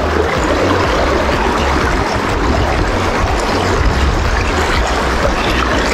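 Shallow, fast brook water rushing and splashing over rocks in a riffle, a steady, even rush.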